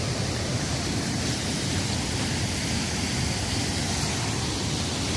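Steady rush of a waterfall running high after heavy rain.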